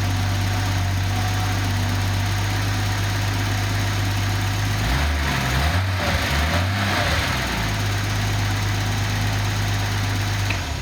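Datsun 280ZX turbo's 2.8-litre inline-six (L28ET) idling steadily on its original, known-good ECU. About halfway through, its speed wavers up and back down for a couple of seconds before settling. The engine shuts off right at the end.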